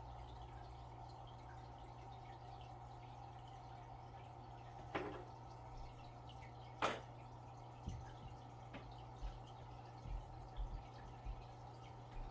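Faint rain dripping over a steady low hum, with two sharp taps about five and seven seconds in and a few soft low thumps near the end.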